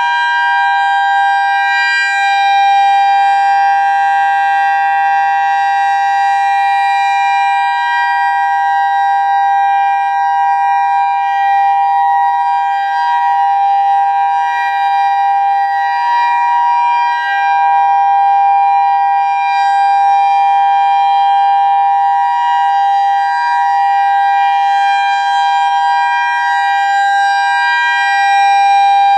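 Federal Signal EOWS 612 electronic outdoor warning siren sounding its steady Alert signal: two notes held together as one unbroken tone, with only gentle swells in loudness.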